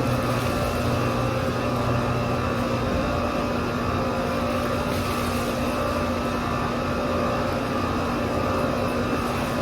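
A machine running steadily, with a constant low hum and an even noise that does not change.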